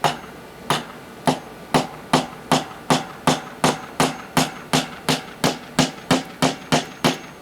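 Hammer driving a nail into wood with a long run of sharp blows, a few slow ones at first and then a steady rhythm of about four a second.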